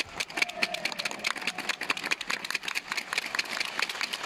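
Rapid, irregular clapping from spectators in a large hall: a dense run of sharp claps, several a second, with a brief voice about half a second in.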